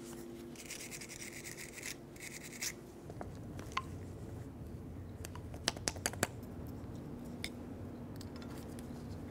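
A shop rag rubbing and wiping over a brake caliper bracket and its slider pin for about two seconds. A few light metallic clicks and taps follow, as the greased slider pin is worked into its rubber boot.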